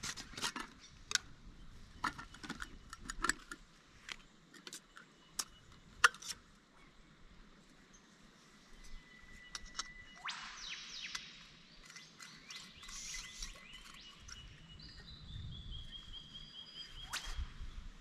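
Small clicks and knocks of camping coffee gear being handled, thickest in the first six seconds, with birds calling in the bush; near the end one whistled note falls slowly in pitch.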